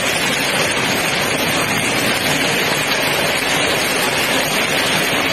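Heavy hail and rain pelting a paved street, a loud, dense, steady noise with no letup.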